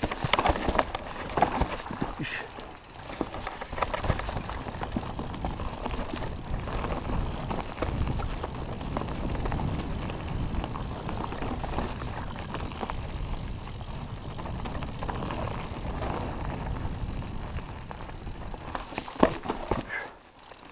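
Mountain bike descending a rocky trail: tyres rolling and crunching over stones, with many short knocks and rattles from the bike, over a low rumble of wind on the helmet-camera microphone. A sharp, loud knock comes about 19 seconds in, and it goes quieter just before the end.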